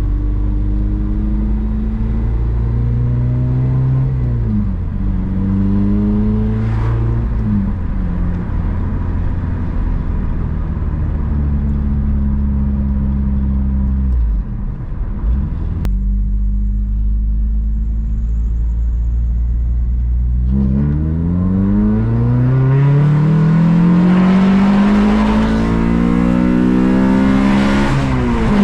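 Honda Civic Si engine driving. It holds steady revs with two brief dips, which are gear changes, then from about twenty seconds in the revs climb steadily through a long pull and drop sharply at an upshift at the end.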